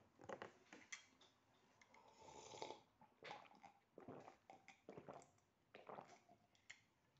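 Quiet sips and slurps of hot coffee from a mug, with breaths between them and a light click about a second in.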